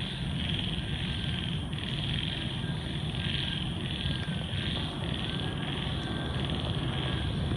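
A chorus of frogs croaking together after heavy rain, with several kinds calling at once. A dense high-pitched band of calls swells and breaks every second or so over a steady low rumble.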